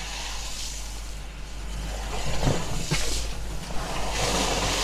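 Land Rover driving through muddy puddles with a steady low engine and road rumble. Water splashes up from the tyres in a surge about two and a half seconds in and again, longer, near the end.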